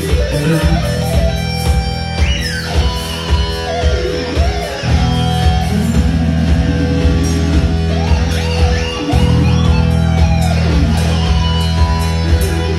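Electric guitar solo with bending, sliding notes, played over a backing track with a steady low bass and regular drum hits.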